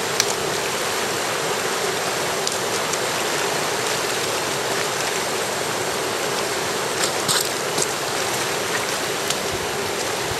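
Fast river rushing over shallow rapids: a steady wash of whitewater, with a few brief ticks about seven seconds in.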